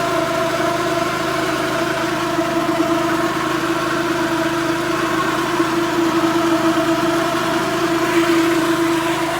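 Countax ride-on mower running steadily, with the noise from its PTO drive: a constant whine over the engine.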